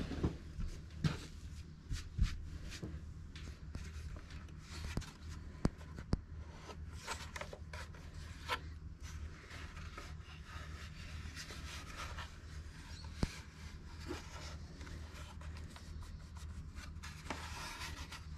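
Hands handling and turning a National Panasonic transistor radio: fingers rubbing and scraping on its case, with scattered light knocks and clicks, a few of them sharper, over a steady low hum.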